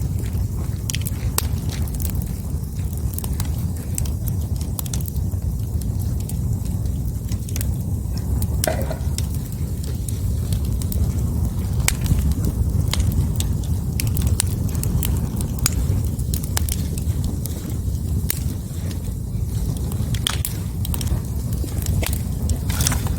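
Wood fire burning: scattered sharp crackles and pops over a steady low rumble.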